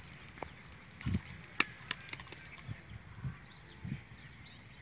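Irregular sharp clicks and soft knocks from a bamboo box fish trap being shaken out over an aluminium pot as small live fish drop and flap inside it.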